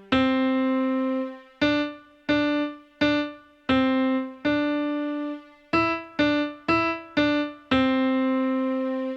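Piano playing a slow melody one note at a time, about eleven notes, each struck and left to fade, with a few quicker notes past the middle.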